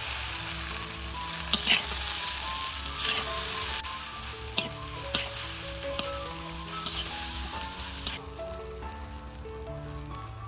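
Noodles and vegetables sizzling in a hot metal wok while a metal spatula stirs and tosses them, with a few sharp clicks of the spatula against the pan. The sizzle drops off about eight seconds in.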